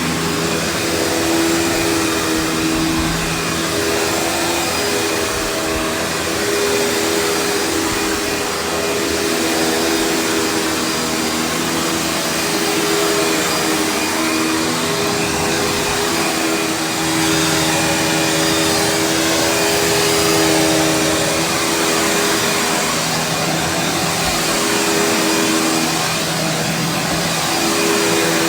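Panasonic upright vacuum cleaner running on carpet with its brush roll turning: a steady motor drone over airflow noise, the hum shifting slightly in pitch every few seconds.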